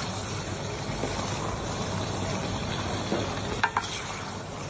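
Fried macaroni being stirred and turned in a wok with a spatula over a steady sizzle, with two sharp clicks of the utensil near the end.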